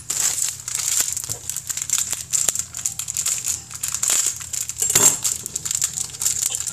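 Close crinkling and rustling right at the microphone, dense rapid crackles that start abruptly, with a louder burst about five seconds in.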